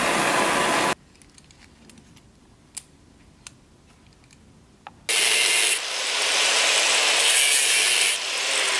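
A gas welding torch flame hissing, cut off abruptly after about a second; then a quiet stretch with a few faint clicks of small metal links handled in gloved hands; then, from about five seconds in, an angle grinder grinding metal.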